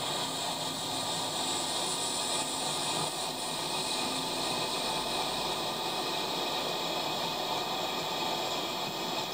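Steady, even hiss-like noise with a faint hum beneath it, unchanging throughout.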